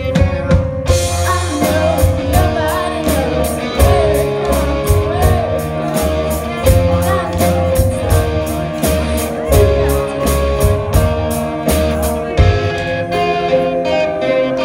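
Live rock band playing: a sung vocal over electric guitar and drums, with steady cymbal strokes coming in about a second in.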